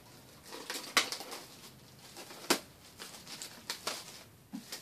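Clear plastic wrapping crinkling and rustling as it is pulled off a hardcover book, with sharp crackles about a second in and again about two and a half seconds in.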